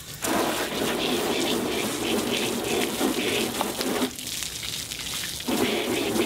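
Water from a garden hose running into a clear plastic tub and splashing over a cyanotype print, rinsing the leftover chemistry off the paper. The splashing eases off about four seconds in and comes back loud about a second and a half later.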